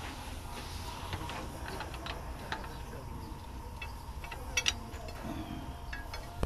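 Faint, scattered metallic clicks and taps of a spanner and steel bar on the leaf-spring bolts, over a low steady rumble.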